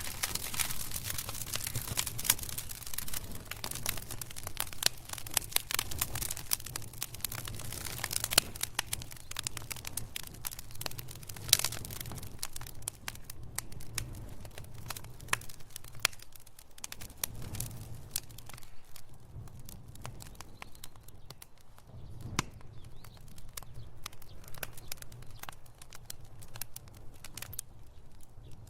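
Wood fire in a fireplace crackling and popping over a low rumble of flames. The crackling is dense at first and thins to scattered single pops after about a third of the way in.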